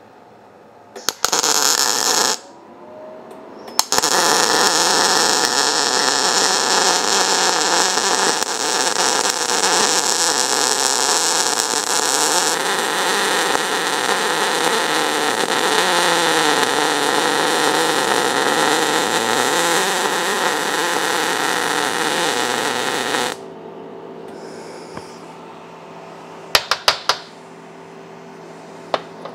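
MIG welder arc crackling as a nut is welded onto the top of a steel bolt: a short burst about a second in, then one long continuous bead that stops abruptly about 23 seconds in. Afterwards a steady low hum and a few light clicks near the end.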